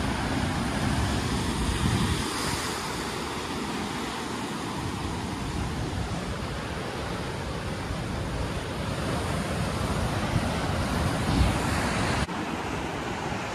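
Atlantic surf breaking and washing over rocks, a steady rush of water, with wind buffeting the microphone in gusts, strongest about two seconds in and again near the end.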